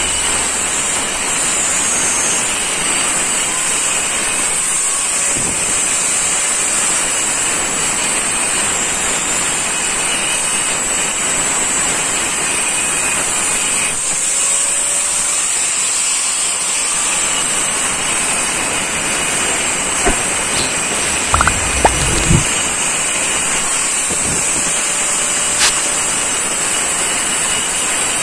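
Hand-held angle grinder with a cutting disc running and sawing through a stone slab: a steady high whine over gritty cutting noise. Several short knocks in the last third.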